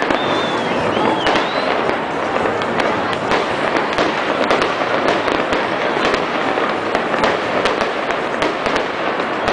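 Fireworks display: a continuous dense crackle with many sharp bangs in quick succession, and a few short whistles about a second in.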